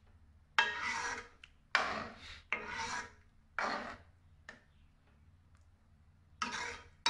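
Metal ladle scraping around a metal kadai while stirring thick sambar. There are about six rasping strokes roughly a second apart, with a pause of nearly two seconds before the last.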